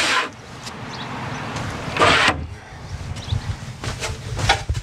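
A sailboat's sliding companionway hatch scraping along its runners in two short pushes, then a run of sharp knocks and taps as someone climbs down the companionway into the cabin.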